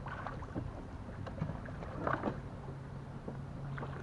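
Water sloshing and light knocks at the side of a fishing kayak as the angler works over the water, with a faint steady low hum underneath.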